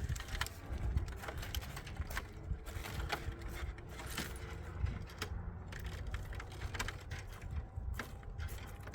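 Irregular light clicks and rattles of small objects being handled.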